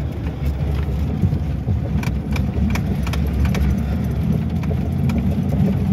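Car engine and cabin rumble while driving slowly over a rutted dirt track, with scattered knocks and rattles as the car jolts over the bumps.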